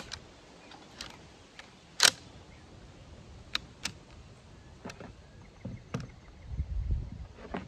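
Sharp metallic clicks and clacks from a Swiss M1911 Schmidt-Rubin rifle's action and parts being handled during reassembly, the loudest about two seconds in. A few dull knocks near the end come from the rifle being handled on the wooden table.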